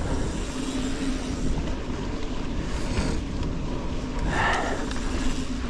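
Mountain bike rolling down a dirt forest trail: tyre noise on the ground and wind rushing over the camera microphone, with a faint steady hum. A brief louder rush of noise comes about four and a half seconds in.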